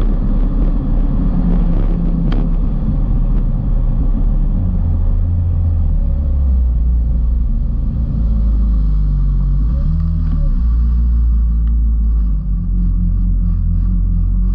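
Kawasaki Ultra 310 LX jet ski's supercharged four-cylinder engine running under way, with rushing water and spray hissing around the hull. Near the end the spray dies away and the engine settles to a steadier lower drone as the craft slows.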